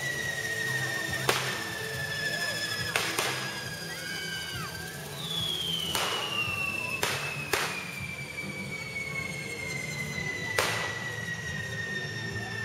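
Correfoc fireworks: hand-held spinning carretilles spraying sparks, with two long whistles that slowly fall in pitch, one after the other. About seven sharp firecracker bangs go off over them.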